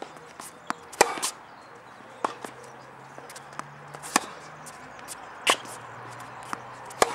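Tennis rally on a hard court: sharp pocks of the ball off racquet strings and the court, one every second or two. The two loudest come about a second in and near the end.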